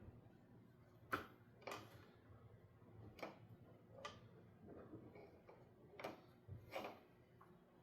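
Faint, scattered light clicks and taps, about six spread over several seconds, from small objects being handled while getting ready to solder.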